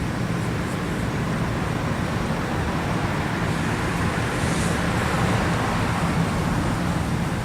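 Steady road traffic noise: a continuous rush of passing vehicles with a low engine hum underneath, swelling slightly about four to five seconds in. No siren is sounding.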